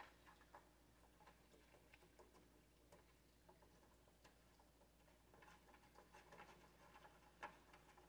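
Faint handling sounds of a plastic exhaust-port bracket being fitted to a laser cutter's back panel: scattered light clicks and scrapes, busier in the second half, with one sharper click near the end.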